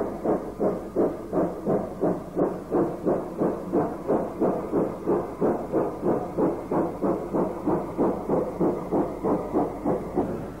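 Steam locomotive exhaust beats: a steady, even chuffing at about three beats a second.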